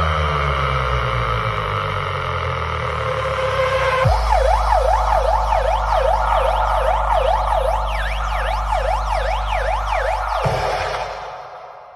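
DJ sound system playing an electronic siren effect during a sound check: a tone wailing quickly up and down, about two and a half times a second, over a steady deep bass. For the first few seconds a slower falling sweep with heavy bass plays, and near the end the bass cuts off and the siren fades away.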